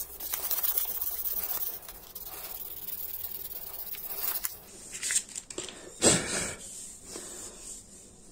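Sandpaper rubbed back and forth on a wooden hammer handle for the first couple of seconds, then softer handling of the handle. A short rush of noise comes about five seconds in, and a louder one about six seconds in.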